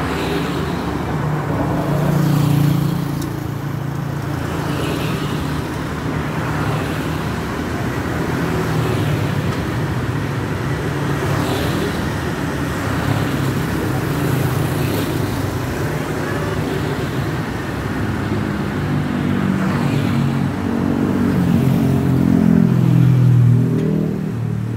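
Road traffic on a city street: motorbikes and cars passing, their engines swelling as each goes by, loudest about two seconds in and again near the end.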